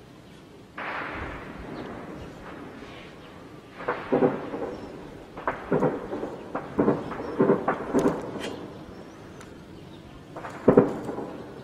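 Distant explosion booming just under a second in and fading away, followed by a string of irregular gunshots, several to a second, then one more shot near the end.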